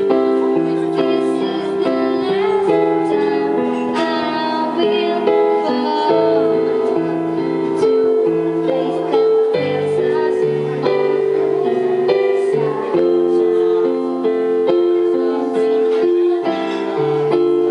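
Yamaha electronic keyboard played in sustained chords that change every second or so, with a woman singing a cover song into a microphone over it.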